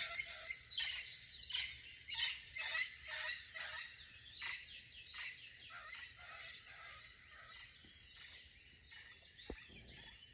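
Birds calling in a rapid series of short, harsh chattering calls, densest over the first few seconds and thinning out toward the end.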